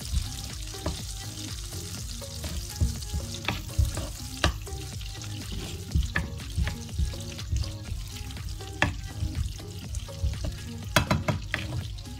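Butter sizzling and bubbling as it melts in a hot nonstick frying pan, stirred with a wooden spatula that knocks and scrapes against the pan now and then, several quick knocks together near the end.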